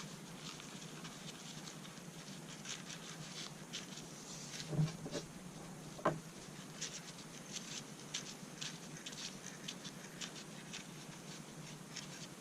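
Faint ticking and scratching of hands working a rifle as a bore snake's weighted cord drops down a .22 barrel, with two soft knocks about 5 and 6 seconds in.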